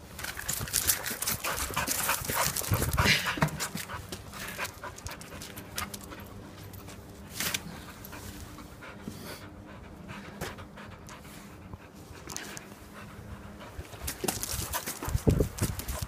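A puppy panting, with a dense run of clicks and scuffs over the first few seconds and again near the end.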